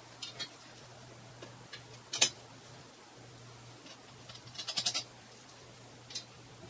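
Tools and bolts clinking against the cast iron parts of a treadle sewing machine base as it is bolted together: a sharp metal clink about two seconds in, a quick run of clicks near five seconds, and another light click near the end, over a faint steady hum.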